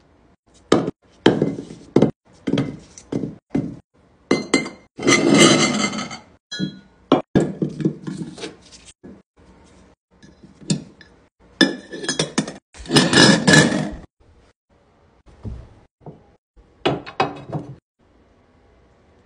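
Glass clinking and knocking as a glass apothecary jar and its lid are handled and small faux pumpkins are dropped into the jar, with two longer bursts of rustling. The sounds come in quick irregular knocks and fall quiet near the end.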